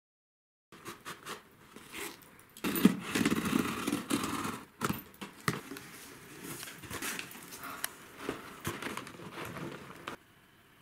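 Handling noise: rustling and crackling with many sharp clicks, heaviest for a couple of seconds early on and cutting off suddenly near the end.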